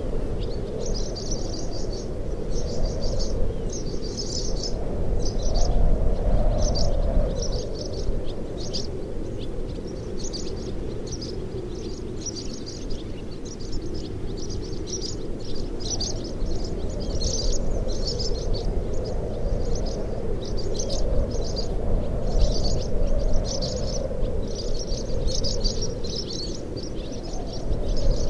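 Swallows twittering in quick clusters of chirps throughout, over the wind moaning through the open doors and sagging window frames of an old wooden shack, a steady eerie undertone that swells and eases.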